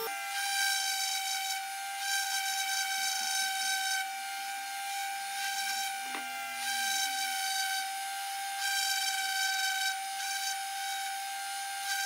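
Electric random orbital sander running with a steady high-pitched whine, held at one pitch, its brighter upper tones swelling and fading every second or two.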